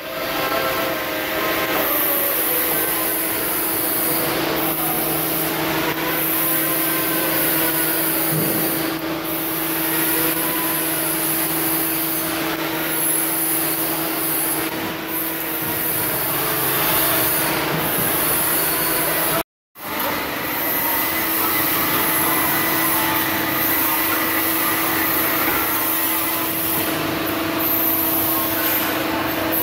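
TIG welding: a steady hiss from the torch over a constant hum, with a brief dropout about two-thirds through.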